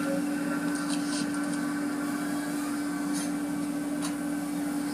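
Automatic car wash machinery running with a steady hum, heard from inside the car, with brief hissing spatters of water spray against the car a few times.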